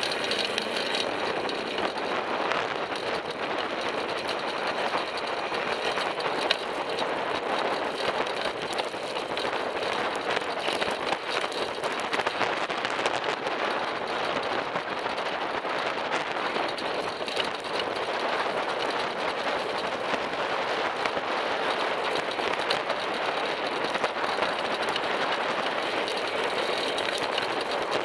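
Steady rush of wind and road noise from riding a bicycle along a busy road, with motor traffic alongside.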